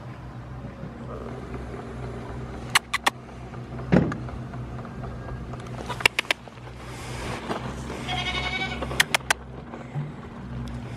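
A goat bleats once, just under a second long, about eight seconds in. Pairs of sharp clicks and a dull thump about four seconds in are louder than the bleat.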